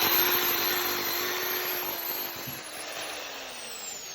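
Corded electric drill running at speed with a steady motor whine, then released about two seconds in and winding down with a falling whine. The owner says its brushes need replacing.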